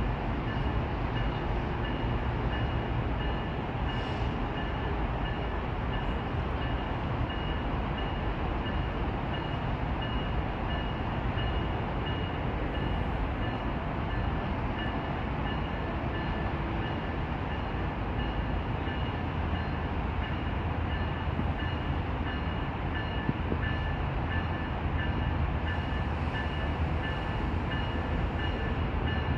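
Approaching train's locomotive giving a steady low rumble, with a bell ringing evenly and continuously over it.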